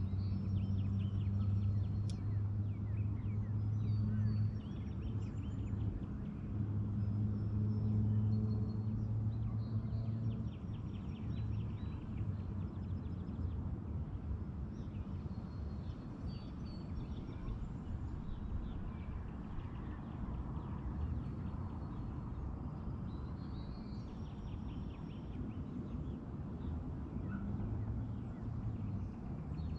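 A boat motor hums with a steady low tone. It dips briefly about five seconds in, fades after about ten seconds and picks up again near the end. Small birds chirp throughout.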